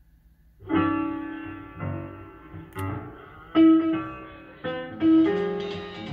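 Music starting from the beginning of a CD track on a Sony CDP-CE375 CD changer, coming in a little under a second in after near silence, with a string of distinct piano-like notes: the repaired changer reading and playing the disc.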